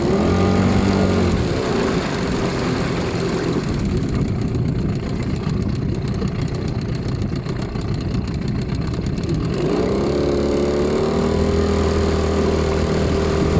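New HDX 9.8 two-stroke outboard motor running in its first break-in, with a light ticking knock. It drops back to a rough idle about two seconds in and revs up again near ten seconds. The owner takes the knock for a connecting-rod knock, a factory defect, and also wonders whether it is the piston.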